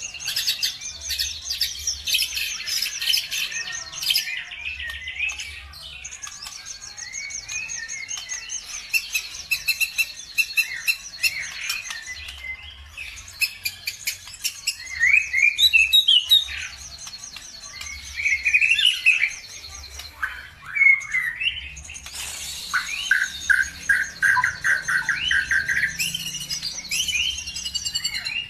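Songbirds singing: long, very rapid high trills, with quick chirps and whistled notes in between, and a lower rattling trill near the end. This is birdsong of the kind played as a lure to get caged songbirds to sing.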